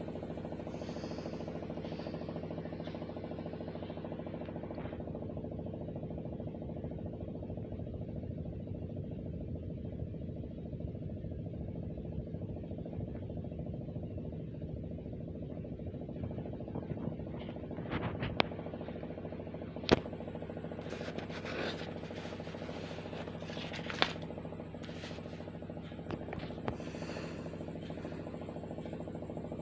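A steady low hum throughout, with a few sharp clicks or taps in the second half.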